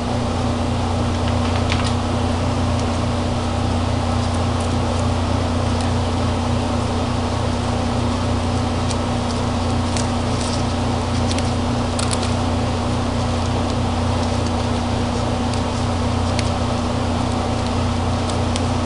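Steady low hum throughout, with a few faint clicks and taps as paper flowers and a wire stem are handled on a craft frame.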